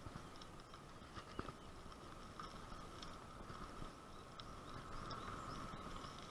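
A bicycle rolling over a rough, patched paved lane: faint tyre noise with small irregular clicks and rattles as it goes over the bumps.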